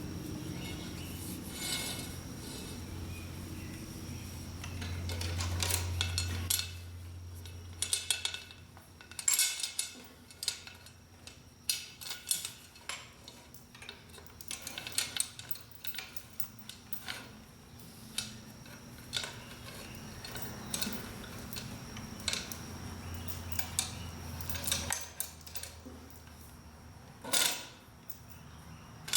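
Metal parts of an old Yale chain hoist's brake being handled and fitted back together, with irregular light clinks and knocks. Under them is a low steady machine hum that stops about six seconds in and comes back faintly later.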